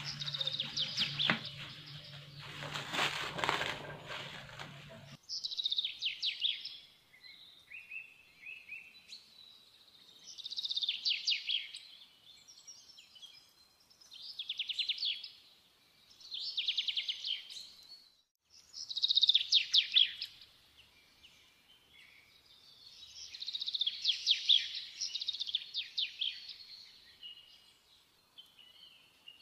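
Songbird singing in short, rapid trilled phrases, one every two to four seconds. For about the first five seconds a rustling noise with a low hum runs under the song, then cuts off abruptly.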